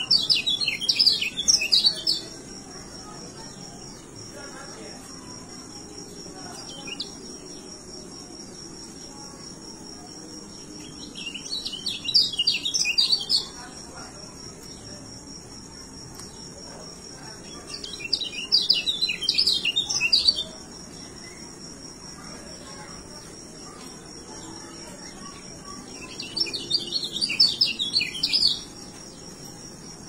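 A caged white-eye (kecial) singing in four quick, twittering song bursts of about two seconds each, spaced several seconds apart, over a thin steady high-pitched whine.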